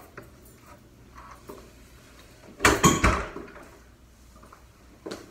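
Hotel room door swinging shut about three seconds in: a heavy thud with a latch clack, among the small knocks and footsteps of someone coming in with bags.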